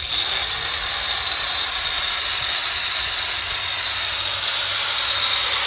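Hercules corded angle grinder with a newly fitted DeWalt diamond masonry blade switched on: it starts suddenly, spins up within about a second, then runs free with no load as a steady whir with a high whine. This is a test run to check that the new blade is seated and does not work loose.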